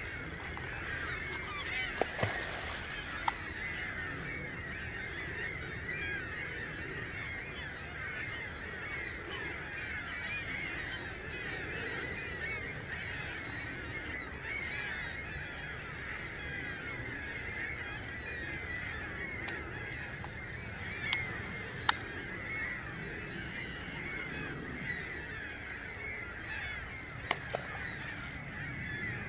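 A large flock of waterfowl honking continuously in a dense chorus of many overlapping calls. A few sharp clicks stand out, about two seconds in, a couple of times in the middle, and twice near the end.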